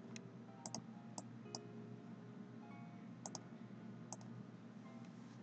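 Computer mouse clicks: a handful of short sharp clicks, some in quick double-click pairs, over faint background music.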